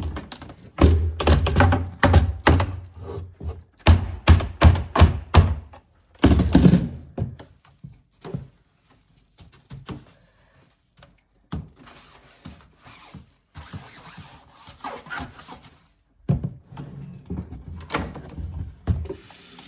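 Repeated thunks and knocks of freezer trays and containers being handled and set down, a quick run of them at first, then quieter and sparser handling, with a few more sharp knocks near the end.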